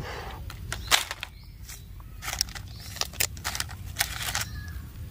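Plastic toy train track pieces clicking and clattering against each other as they are picked up and handled: an irregular run of sharp clicks and clacks.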